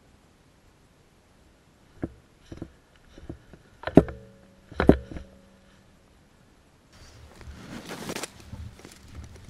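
Several sharp knocks and clacks, the loudest two about four and five seconds in, followed near the end by a rush of rustling as someone pushes through brush and dry leaves.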